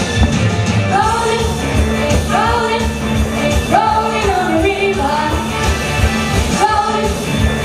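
A female voice singing a rock-and-roll song into a handheld microphone over amplified band backing with a steady drum beat. The sung phrases come in about a second in.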